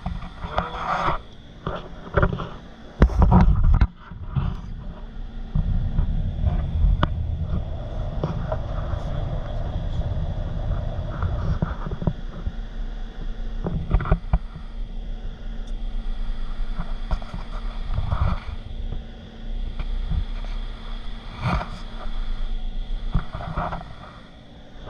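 A vehicle on the move, with a steady low rumble of engine and road noise and a loud low thump a few seconds in.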